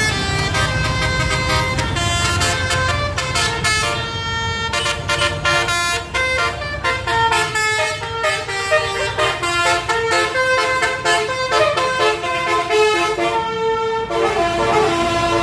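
Bus 'telolet' horn, a set of multi-tone air horns, playing a tune of held notes that step up and down with short breaks. A low engine rumble runs under the first few seconds.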